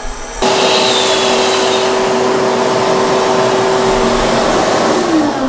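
Vacuum cleaner switched on about half a second in, running with a steady whine and rush of air as it sucks up milling dust, then switched off near the end, its motor winding down in pitch.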